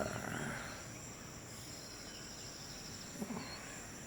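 Crickets trilling steadily in the pre-dawn dark, with a couple of faint, brief bird chirps.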